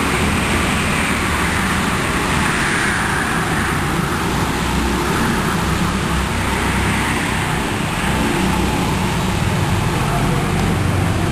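Racing go-karts running on an indoor track, a steady wash of kart noise that swells and fades as karts pass by.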